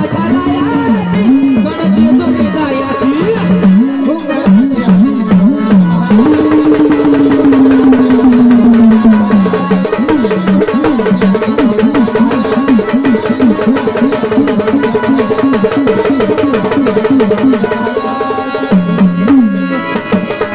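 Marathi folk devotional music: a melody that swoops and wavers in pitch over fast hand-drum playing, with the drumming growing dense about six seconds in.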